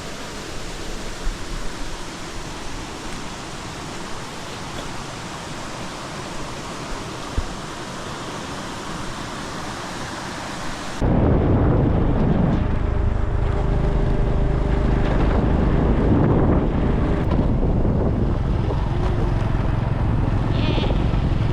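Steady hiss of water rushing over a small waterfall. About halfway it cuts suddenly to a louder ride on a motorcycle: a low engine drone with wind buffeting the microphone.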